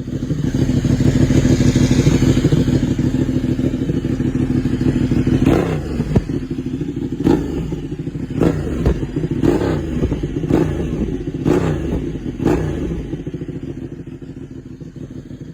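Ducati Panigale superbike on an SC Project aftermarket exhaust running loud and steady, then blipped on the throttle about once a second from about five seconds in. Each short rev ends in a sharp crack.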